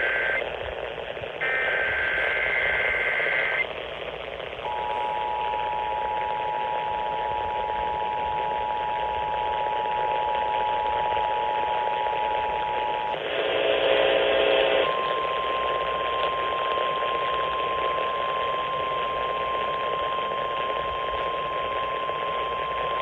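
Emergency Alert System tones received over AM radio, with hiss underneath. It opens with the end of one SAME header burst and then a whole second data burst, a warbling digital squawk. Next comes the EAS two-tone attention signal held about eight seconds, then a brief jumble of tones, then a single steady tone for about nine seconds.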